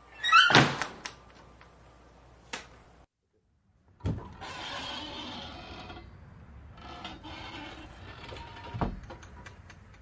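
Wooden screen door on a metal spring hinge opening and slapping shut. A loud squeak and slap come about half a second in. After a short gap there is a thump, then a couple of seconds of rattling creak, and another thump near the end followed by a few light clicks.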